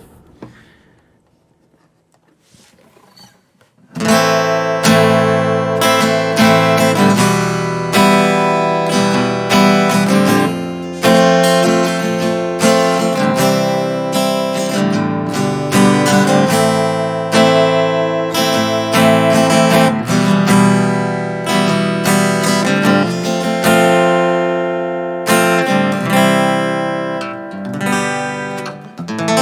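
Thinline acoustic-electric guitar played through its piezo pickup into a NUX MG30 with a little reverb, strumming chords in a steady rhythm. It starts about four seconds in, after a short quiet pause.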